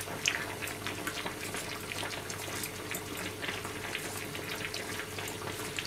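Water boiling in a pot on the stove: steady bubbling with small irregular pops, over a steady low hum.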